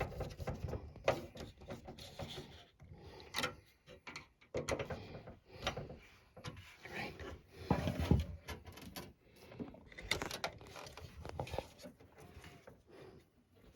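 Irregular clicks, knocks and scrapes of a screwdriver and metal parts as a graphics card is screwed to the PC case's expansion-slot bracket.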